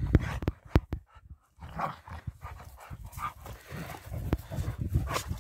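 German Shepherd panting close to the microphone in uneven breathy puffs, with two sharp clicks, one about a second in and one near the end.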